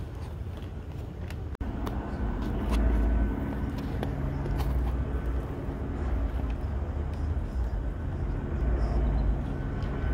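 A steady low engine drone over outdoor background noise, with a brief dropout in the sound about one and a half seconds in.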